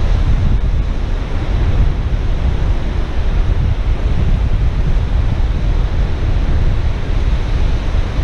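Steady surf washing on the beach, with wind buffeting the microphone in a constant low rumble.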